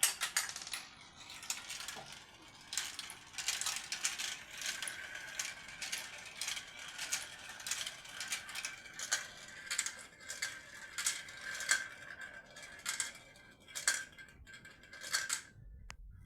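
Marbles rolling and clattering down a toy marble run: many quick small clicks and rattles, with a faint steady ringing as marbles roll along the track. The activity dies away near the end.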